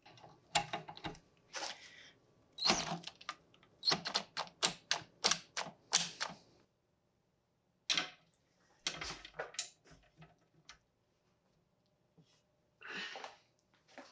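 Ratchet socket wrench clicking in short runs of strokes, about three or four a second, as the nut on the rusty strap bolt of an antique bush axe is worked loose.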